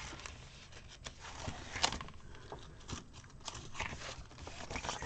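Paper pages of a disc-bound planner being turned and handled by hand: a few short, irregular rustles and taps, the sharpest about two seconds in.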